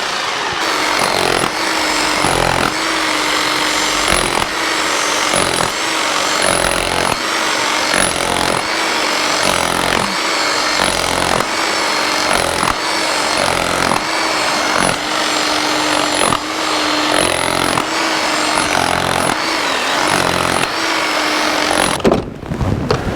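Electric power tool working a crack in a concrete foundation to widen it, running loudly with a steady tone and short dips as it is repositioned, then shutting off near the end.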